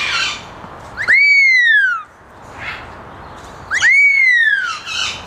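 A parrot whistling loudly: two whistles about three seconds apart, each swooping sharply up and then sliding down in pitch. Brief rougher calls come between them.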